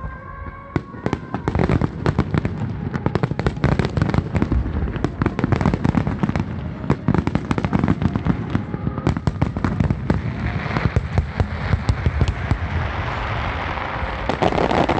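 Aerial fireworks in a dense barrage: rapid crackling and popping with the low booms of bursting shells. Near the end it swells into a louder, fuller rush of crackle.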